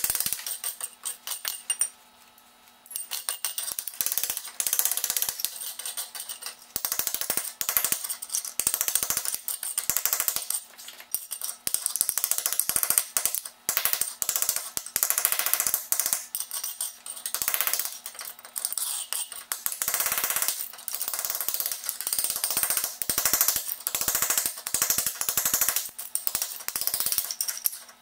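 Hand scraper chipping and scraping old tile adhesive and broken ceramic floor tile off the floor: rapid, irregular scrapes and clinks of tile fragments, with a brief pause about two seconds in.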